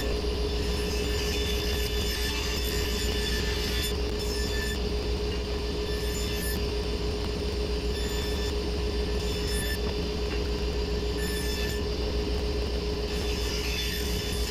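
Cabinet table saw running steadily, a constant motor hum with a steady whine.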